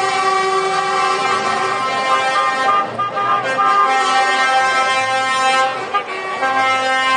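Several vehicle horns sounding together in long held blasts, with a few short toots about three seconds in and a brief break near six seconds, as a van drives past.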